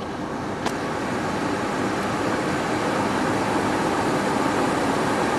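Car climate-control blower fan blowing air into the cabin, its rush growing louder over the first few seconds as the fan speeds up, then holding steady; a single click about a second in.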